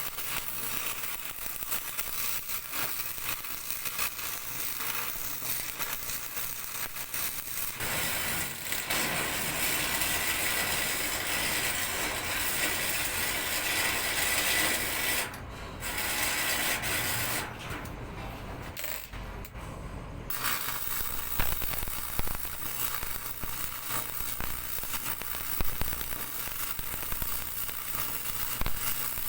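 Electric arc welding: the arc crackling and sizzling steadily, breaking off briefly about halfway through and again for a couple of seconds soon after.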